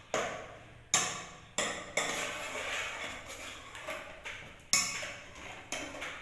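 Wire whisk beating pancake batter in a metal pot, scraping through the mix with about six sharp knocks as its wires strike the side of the pot, while mashing banana into the batter.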